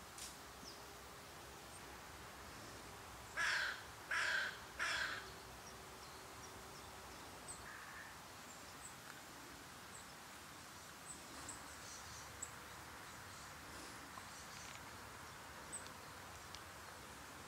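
A crow cawing three times in quick succession, harsh calls a little over half a second apart. Faint high chirps of small birds come and go through the rest.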